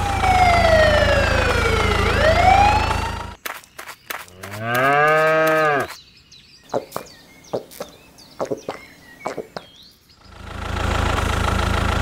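Tractor engine running with a steady low rumble and a whistle-like tone that slides down and then back up, stopping after about three seconds. Then a cow moos once for about two seconds, followed by scattered light clicks and taps, and the engine rumble starts again near the end.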